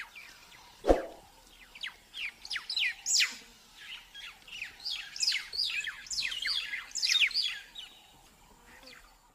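Weaver birds chirping: a busy chatter of many short, quick downward-sweeping chirps, thickest in the middle of the stretch and fading near the end. A single sharp knock comes about a second in.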